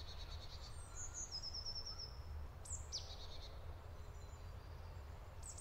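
Birds singing: a quick run of about six short high notes, then a couple of downward-sweeping whistles, over a faint low steady rumble.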